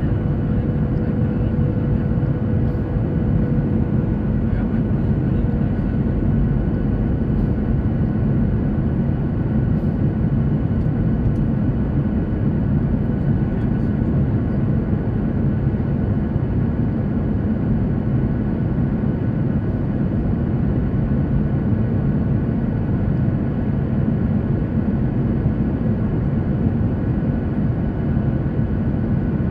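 Steady rumble of a jet airliner heard from inside the cabin, with a few faint steady tones above it.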